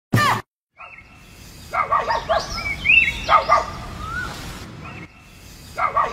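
Bird-like chirping calls, short gliding notes in a few clusters over a faint steady high whistle, after a brief sharp sound at the start.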